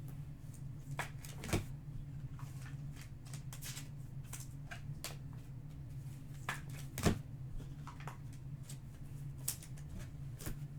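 Trading cards being handled and flipped through: scattered short rustles and light taps of card stock sliding and being set down, with one sharper tap about seven seconds in.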